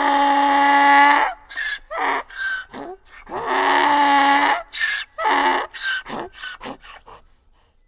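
Donkey braying twice. Each bray opens with one long note held at a steady pitch, then breaks into a run of short honks that get shorter and fainter.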